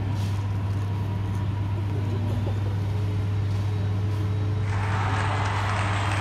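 A steady low hum, with a louder rushing noise joining about three-quarters of the way through and carrying on.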